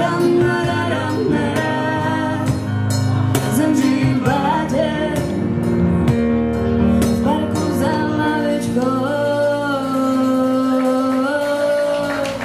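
Live band playing a song: sung vocals over strummed acoustic guitar, bass guitar and keyboard. Near the end the singing holds one long note.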